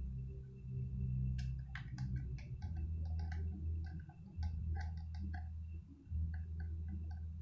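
Quick small clicks and ticks of screws and small parts being worked loose from a laptop's case with a screwdriver, starting about a second and a half in, over a steady low hum.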